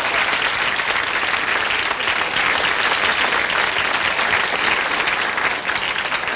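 Studio audience applauding steadily, a dense wash of clapping that begins to fade near the end.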